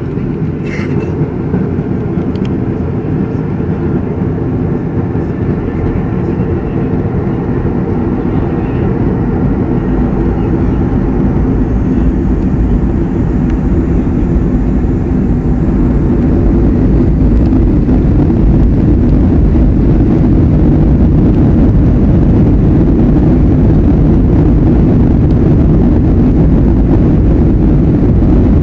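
Aircraft engines running with a steady low drone that grows gradually louder, a faint high whine rising slowly above it.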